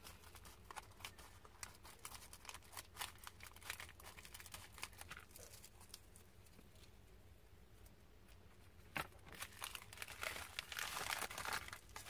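Plastic poly mailer bag crinkling and crackling as it is cut open and handled, in many short crackles, then a denser burst of crinkling near the end as the package is pulled out of the bag.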